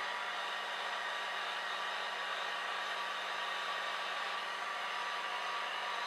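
Small handheld hair dryer running steadily: an even rush of blown air with a faint low hum.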